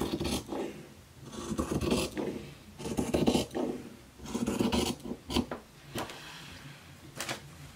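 Fabric shears cutting through a shirt sleeve: a series of short rasping snips as the blades close through the cloth, about one a second with uneven gaps.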